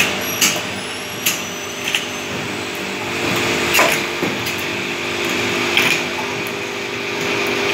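Automatic juice filling machine running: a steady mechanical hum broken by sharp clicks at irregular intervals, one every one to two seconds.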